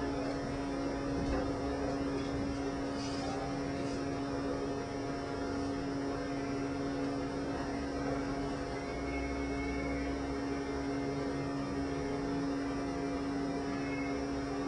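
Steady electrical hum over faint room hiss, with no music playing.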